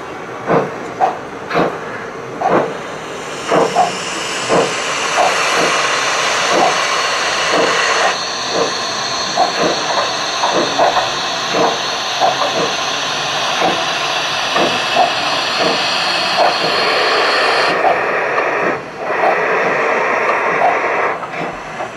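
Gauge 1 model steam locomotive's steam sound effects: steady, regular exhaust chuffs over a loud hiss of steam. The hiss builds a few seconds in and thins out near the end.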